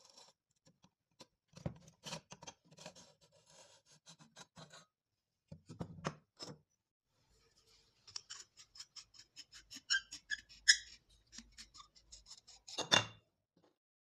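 Metal parts of a dismantled air rifle being handled: scraping and clicking as a steel rod is worked through the receiver tube and a metal tube. A run of quick clicks follows, some with a brief metallic ring, then one louder clack near the end.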